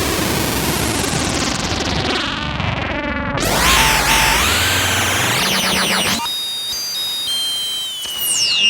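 Korg ARP 2600 FS analog synthesizer playing noisy sound-effect patches. A hissing, filter-swept noise wash gives way at about three and a half seconds to a bright wobbling sound. That cuts off abruptly at about six seconds into a few high steady tones that step and then slide down near the end.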